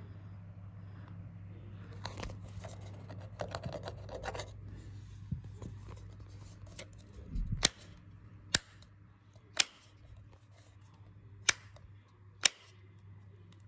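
Rocker switch of a 2000s Crabtree switched fused spur flicked on and off: five sharp clicks roughly a second apart. A rustle of fingers handling the faceplate comes before the clicks.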